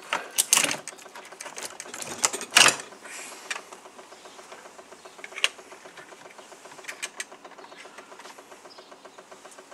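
Plastic housing of a first-generation Tesla wall charger knocking and clattering as the unit is pulled off its wall base plate and handled, with a few sharp knocks in the first three seconds and a few lighter clicks later. A faint, fast, even ticking runs underneath.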